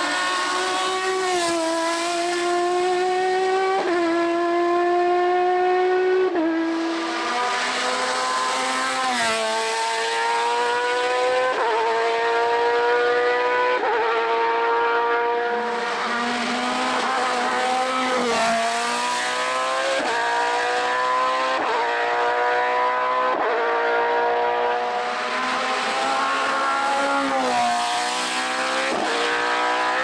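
Hill-climb race car engines accelerating hard up the course. The pitch climbs in each gear and drops sharply at each gear change, every couple of seconds, with several runs following one another.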